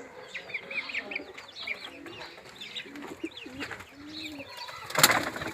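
A flock of chickens clucking, with many short, high peeping calls throughout. A brief, loud sudden noise comes about five seconds in.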